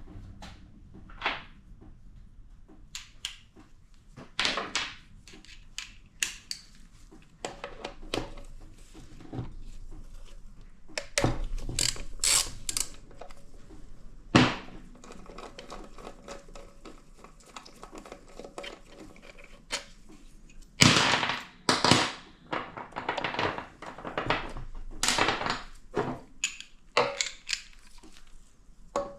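Metal transmission parts and hand tools clinking and knocking as they are handled, with some brief metallic ringing and a louder run of knocks about three-quarters of the way through.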